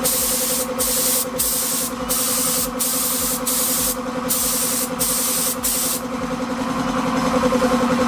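Compressed-air paint spray gun hissing in short repeated bursts over the steady hum of a running air compressor. The spraying stops about six seconds in and the compressor keeps running.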